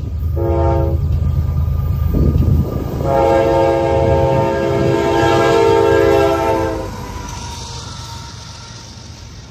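A diesel locomotive's multi-note air horn sounds a short blast about half a second in, then a long blast of nearly four seconds starting about three seconds in, over the low rumble of the approaching locomotive. After the horn stops, the autorack cars roll past with a steady rushing rail noise that slowly fades.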